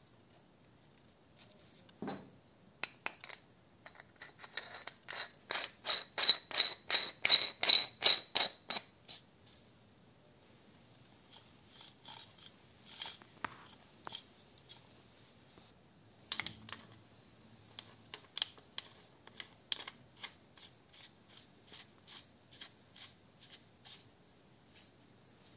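Metal parts of an old pneumatic drill being handled and fitted together by hand: a run of rapid, even clicks at about four a second starting about five seconds in, a couple of knocks, and scattered lighter clicks and scrapes.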